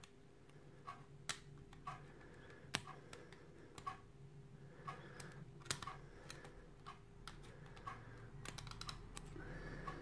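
Faint, irregular small metallic clicks of a hook pick lifting the pin tumblers of a kite-marked one-star euro cylinder lock held under turning pressure from a tension wrench, with a quick run of clicks near the end.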